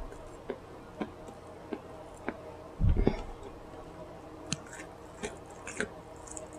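Close-miked mouth sounds of eating: soft wet clicks and smacks every half second or so, with one louder low thump about three seconds in.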